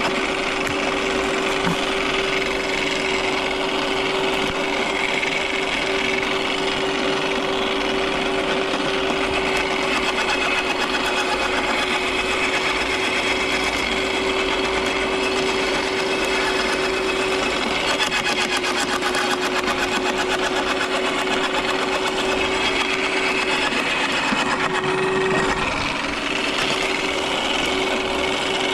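Electric garden shredder running with a steady motor whine while branches are fed in and chopped, a continuous crackle and rasp of wood over the motor note. The motor note sags a little for several seconds past the middle and then recovers.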